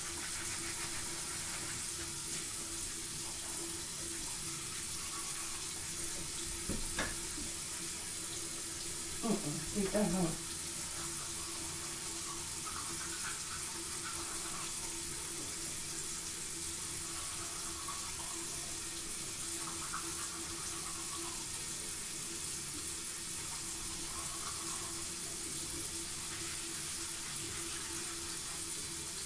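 Bathroom sink tap running steadily. A short burst of voice comes about nine seconds in.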